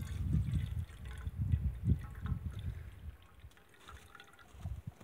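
Chaga tea steeped in maple sap, poured in a thin stream from a blackened pot into a metal can, trickling and splashing, with a low rumble over the first three seconds.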